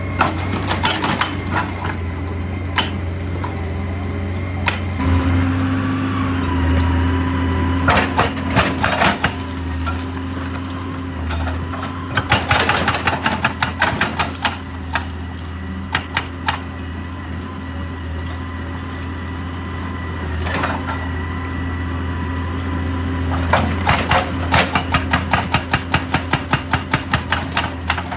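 JCB excavator's diesel engine running steadily while its hydraulic rock breaker hammers rock in several bursts of rapid, even blows, about ten a second, each burst lasting a few seconds, with a few single knocks between.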